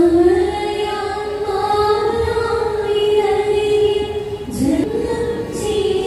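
Singing: a voice holding long, slow notes of a melody that moves in small steps, with a short upward slide about four and a half seconds in.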